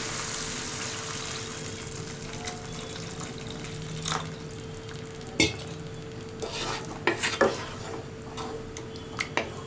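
Water poured in a steady stream into a pan of hot tomato masala, a continuous sizzling pour for the first four seconds or so. Then a wooden spatula stirs the thinned gravy, with scattered scrapes and knocks against the nonstick pan.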